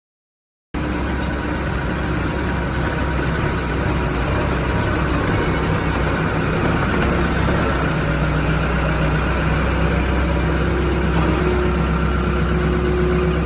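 Skid steer loader engine running steadily, cutting in abruptly about a second in.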